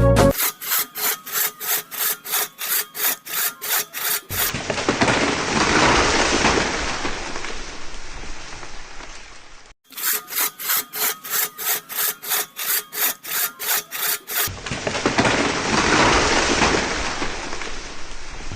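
Rhythmic hand sawing, about four strokes a second, in two runs of several seconds. Between the runs are stretches of steady, even hiss.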